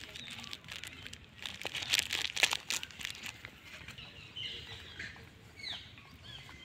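Dry leaves crackling and rustling, loudest about two seconds in, then a few short high falling chirps near the end.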